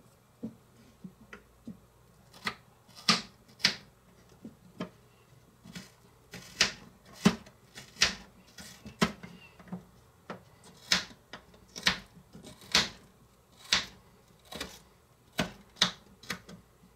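Knife dicing a red onion on a small wooden cutting board: a run of sharp, irregular taps of the blade striking the board, roughly one or two a second.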